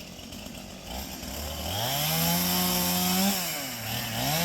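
Two-stroke chainsaw engine revving up from a low idle to a steady high-rpm run. Near the end the throttle eases off briefly and is then opened again.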